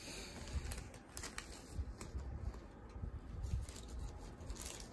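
Quiet handling of Pokémon trading cards: scattered light rustles and small taps as cards are shuffled and set down.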